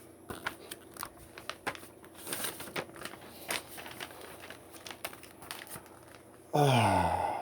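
Plastic LEGO pieces and a parts bag being handled: scattered light clicks and plastic crinkling, with a denser rustle a little over two seconds in. Near the end a voice sounds one long note that falls in pitch.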